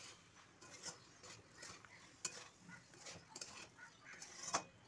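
Spatula stirring pasta in a steel kadai, a string of irregular scrapes and clicks against the pan, the loudest near the end.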